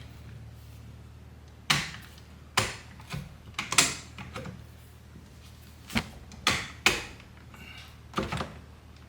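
About ten irregular sharp clicks and knocks, spaced unevenly, over a steady low hum: hand tools and steering-wheel parts being handled and fitted.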